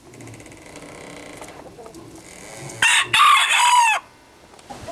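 Rooster crowing once, loud, starting nearly three seconds in and lasting about a second, its pitch falling at the end. Before it, quieter clucking of hens.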